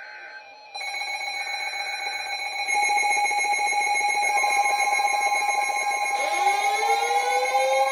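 Weather-alert radios sounding their alarm tones for an incoming severe thunderstorm warning: steady tones start under a second in, more join about three seconds in, and a wailing tone rises in pitch near the end.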